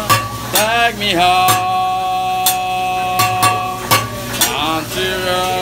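Metal spatula and fork clacking sharply on a hot teppanyaki griddle, about once a second and unevenly spaced, while food sizzles. Over it runs a tune of long held notes, with sliding pitch swoops about a second in and near the end.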